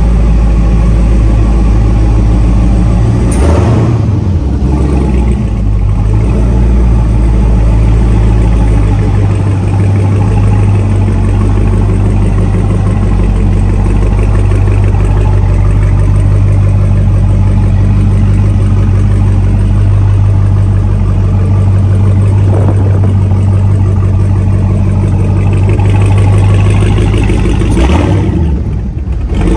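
2021 Dodge Charger SRT Hellcat Redeye's supercharged 6.2-litre V8 idling steadily and loudly.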